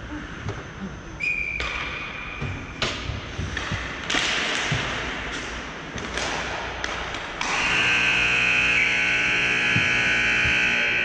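Ice rink buzzer sounding one long, steady blare that starts about two thirds of the way in and is the loudest sound. Before it come a short high whistle and a few sharp knocks of hockey play.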